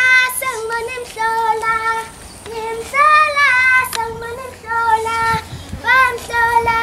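Children's choir singing a melody in held, gliding notes.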